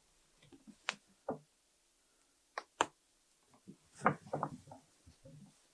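Faint, scattered small clicks and soft rustles of calico being handled and pinned on a dress form, with a short cluster of rustling about four seconds in.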